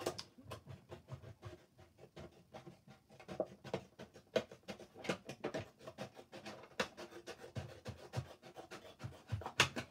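Scissors cutting through a plastic milk bottle with small repeated bites: a run of irregular crisp snips, several a second.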